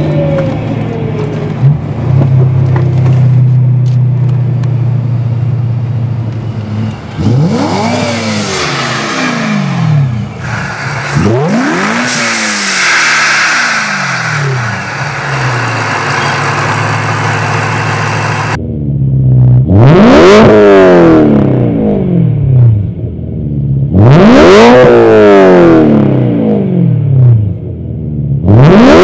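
Supercharged BMW E92 M3's 4.0-litre V8 with a race exhaust, running steadily at first and then revved up several times. In the second half come three sharp throttle blips, each rising quickly in pitch and falling straight back.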